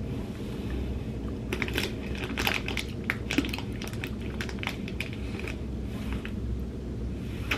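Plastic candy wrapper crinkling and crackling as it is handled and torn open: a dense run of sharp crackles starting about a second and a half in and lasting about four seconds, with one more near the end.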